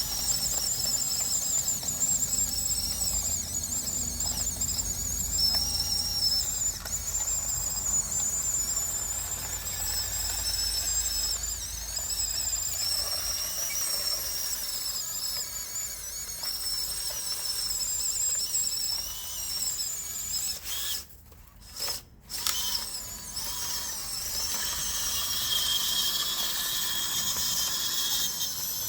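High-pitched whine of small electric motors and gearboxes in radio-controlled construction models at work, wavering in pitch as they move. It stops twice briefly about two-thirds of the way through.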